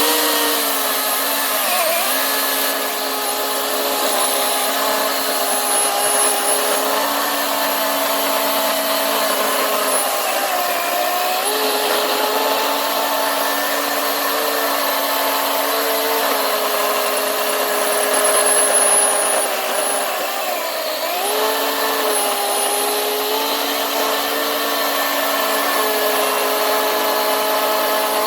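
Ryobi OCS1830 18V brushless battery chainsaw cutting through a log about 12 inches thick: a steady electric motor whine with the chain rasping through the wood. The pitch dips briefly about three times as the load on the chain changes.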